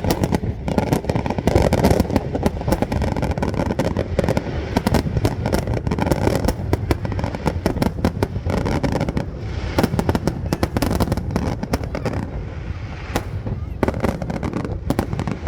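Fireworks display: a dense, unbroken barrage of rapid bangs and crackles over a low rumble.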